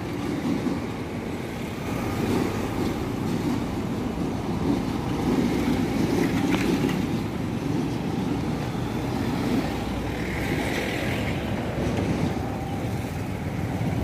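Street traffic: motorcycles and cars passing close by, a continuous low rumble that swells a little as vehicles go past.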